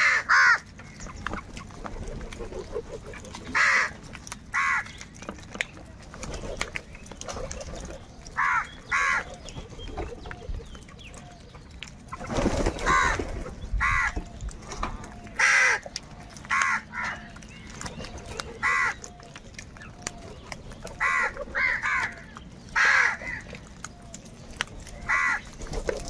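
A flock of house crows cawing while feeding: short, harsh caws at irregular intervals, often two close together. About halfway through there is a brief burst of rustling noise.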